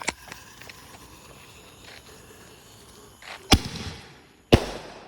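Consumer fireworks going off: a fading hiss, then two loud, sharp bangs about a second apart in the second half.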